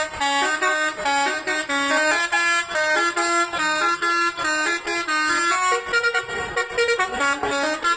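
Bus telolet horn playing a fast melody of short, distinct notes, about three to four a second, the notes stepping up and down in pitch; it stops abruptly near the end.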